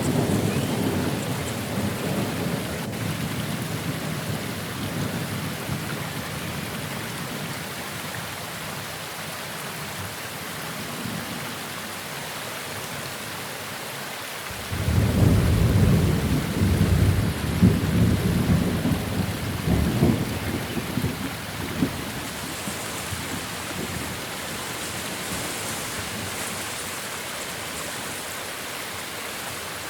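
Steady rain with thunder: a rumble fading away over the first several seconds, then a new peal breaking suddenly about halfway through and rumbling on for several seconds before dying down.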